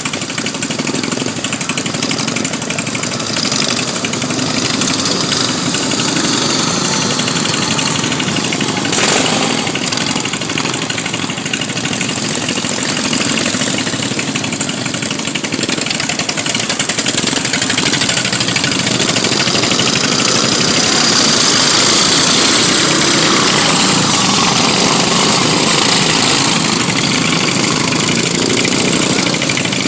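Single-cylinder racing lawn mower engines running hard, the sound swelling and easing as they go. There is a brief louder burst about nine seconds in, and the sound is loudest a little past halfway.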